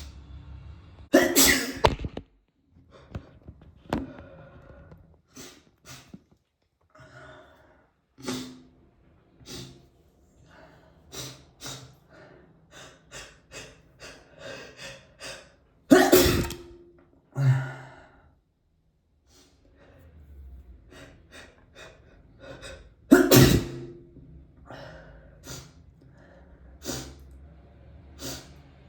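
A person sneezing hard three times: about a second in, around the middle, and about two-thirds through. Short breathy sounds come in between.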